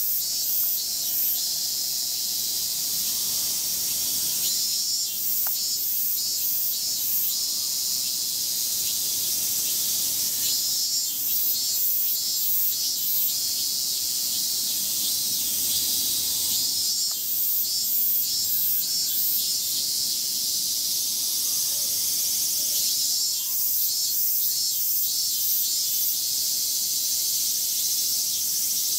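A chorus of summer cicadas singing as a steady high drone, with bursts of rapid pulsing that come and go every few seconds.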